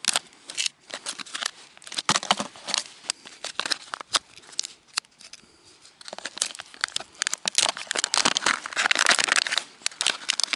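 Packaging of dried nereis bait crinkling and crackling as the packet and a small sachet inside it are handled and torn open by hand, a quick irregular run of crackles that grows densest about eight to ten seconds in.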